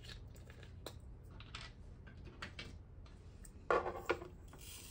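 Small sharp clicks and taps of diamond-painting tweezers being handled and tried out, scattered irregularly, with a louder short clatter about four seconds in.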